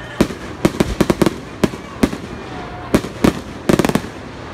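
Aerial firework shells bursting in a display finale: a string of sharp bangs, several in quick clusters, ending in a rapid volley of bangs near the end.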